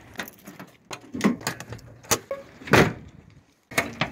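A string of sharp clicks and clunks from working a pickup truck's hood latch and hood, with one louder clunk about three seconds in.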